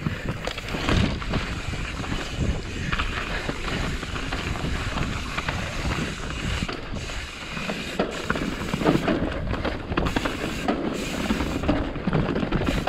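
Wind rushing over the microphone while a mountain bike rolls fast down a rough dirt trail, its tyres crunching and the bike rattling with many small knocks over roots and rocks.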